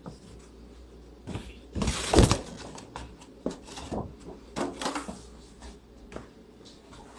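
Scattered knocks and rustles of objects being handled, with a louder clatter about two seconds in.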